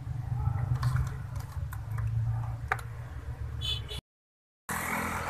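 Mother cat purring, a strong low fluttering drone while she nurses her newborn kittens, with a few faint clicks over it. About four seconds in it cuts off into a moment of dead silence, then a steady outdoor background hiss follows.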